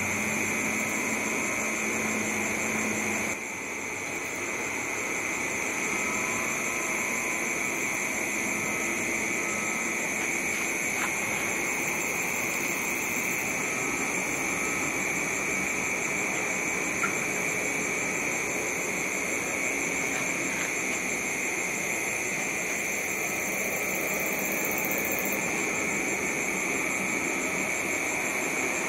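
Jet airliner's engines on approach: a steady high-pitched whine over a rushing roar.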